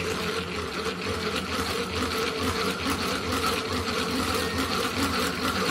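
Hand-cranked plastic egg-white whipper turned steadily by its crank: an even, fast gear rattle and whirr as the beaters whip egg whites into stiff peaks.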